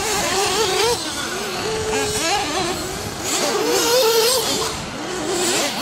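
Several nitro RC buggies' small glow-fuel engines buzzing at once, their pitch rising and falling as they accelerate and brake around the track. One passes closer and is loudest about four seconds in.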